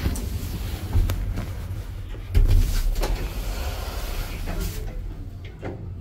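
Passenger lift cab after a floor button is pressed: a knock about a second in and a louder thump about two and a half seconds in, over a steady low rumble, as the doors shut and the car sets off.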